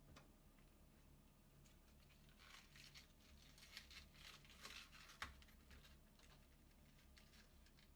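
Faint, irregular crisp crackling of raw cabbage being handled and cut, with one sharper knock about five seconds in.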